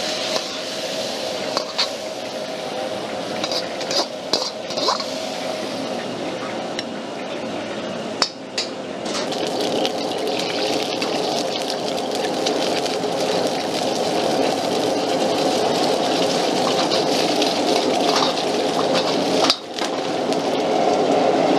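High-powered gas wok burner running with a steady rushing noise, while a metal ladle scrapes and clinks against the wok and food sizzles in hot oil. There are sharp clinks of the ladle on metal every few seconds, the loudest near the end.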